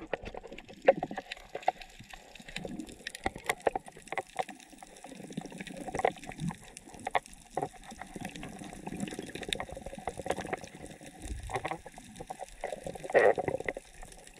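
Underwater sound picked up by a camera in the sea: muffled churning and gurgling of moving water, with many scattered sharp clicks and crackles, and a louder swell near the end.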